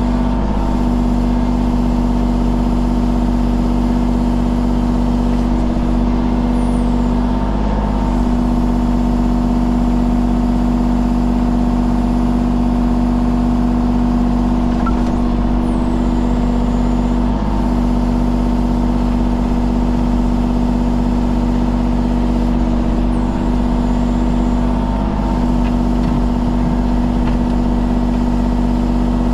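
Engine running at a constant speed, a loud steady hum that does not rise or fall.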